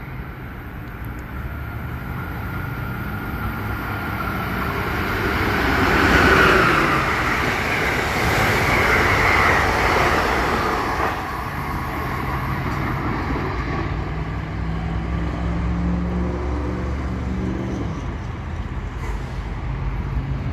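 Amtrak passenger train of Amfleet coaches approaching and passing at speed, the wheel and rail noise building to its loudest about six seconds in, then easing off as the train goes by.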